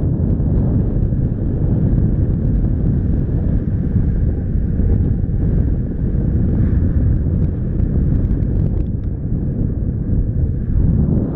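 Steady low rumble of airflow buffeting the microphone of a camera mounted on a flying paraglider's risers.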